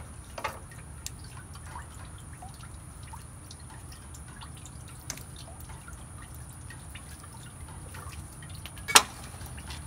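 Coolant dripping from the tractor's cut radiator hose in scattered small drips, with one sharp clack about nine seconds in.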